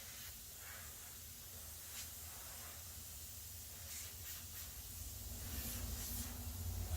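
Steady hiss of compressed air leaking from a scuba regulator fitted to its tank, with a few faint ticks and a low hum that builds near the end.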